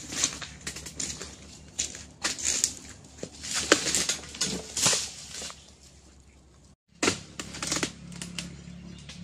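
Irregular knocks, clicks and rustling scrapes as a long harvesting pole with a chisel blade pokes and pries at an oil palm fruit bunch among the fronds. The sound breaks off briefly about seven seconds in.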